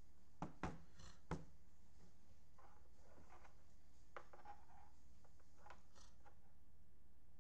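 Three sharp taps or clicks in the first second and a half, then faint rustling and small clicks of objects being handled on a desk, over a low steady hum.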